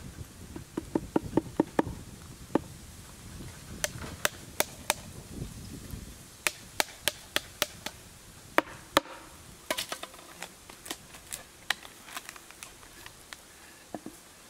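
A series of irregular sharp knocks and taps. A cluster of duller knocks comes about a second in, then sharper, clicking taps from about four seconds in, growing sparser and fainter near the end.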